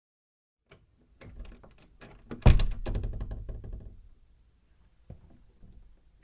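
Old door being worked: a series of clicks and rattles from the latch and handle, then one loud heavy thump about two seconds in that rumbles away over a second or so, and a small click near the end.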